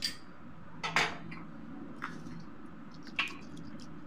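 A spoon clinking against a stainless steel plate four times, the loudest about a second in, as curd is spooned onto kachoris, over a low steady hum.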